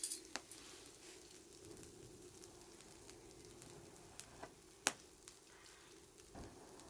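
Campfire burning, with faint crackling and a sharp pop about five seconds in.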